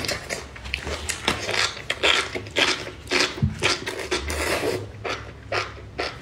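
Person slurping up and chewing a mouthful of enoki mushrooms in spicy chili-oil broth: a quick run of irregular wet slurps and smacks.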